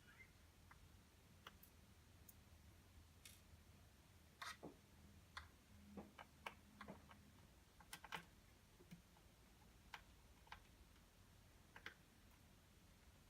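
Faint, scattered clicks and taps of a small screwdriver and screws being worked out of a laptop's screen assembly, irregular, a dozen or so, with a cluster around the middle.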